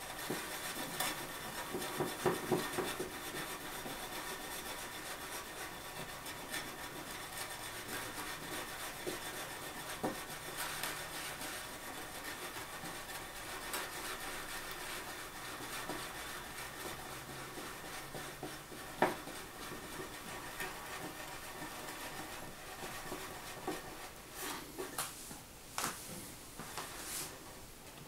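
Stainless steel milk jug of frothed milk being slid and swirled on the countertop: a steady scraping rub with scattered small knocks, and a few louder knocks near the end as it is lifted.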